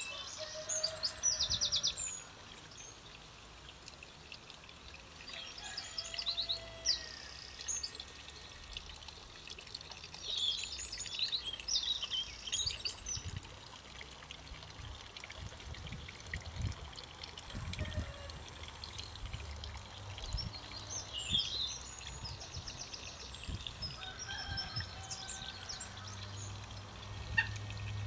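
Garden songbirds singing: short bursts of high, rapid trilled phrases every few seconds over a faint outdoor background, with a low hum coming in near the end.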